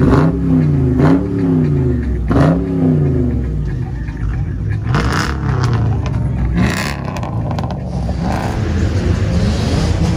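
Dodge Charger's engine being revved three times in quick blips, each rev rising and falling in pitch within about a second, then settling into a steady rumble. Two brief sharp noises come around the middle.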